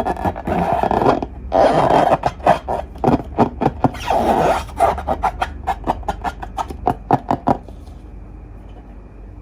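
Slime being squeezed and worked by hand: a dense run of sticky clicks and pops with squishing, stopping about seven and a half seconds in, leaving a faint steady hum.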